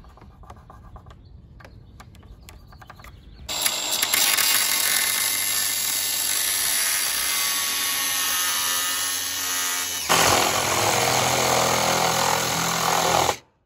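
After a few seconds of light handling, an angle grinder with a cut-off wheel starts up and cuts into an aluminium threshold with a steady high whine. About ten seconds in it gives way to a second power saw cutting the metal with a lower, buzzier sound, which stops abruptly near the end.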